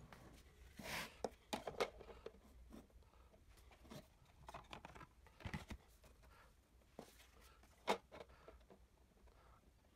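Faint, scattered handling noises: thin plastic covers being fitted onto PVC pipe-coupling drums and the assembly lifted and set down on a table, giving a few light taps and rustles, the clearest about a second in, midway and near the end.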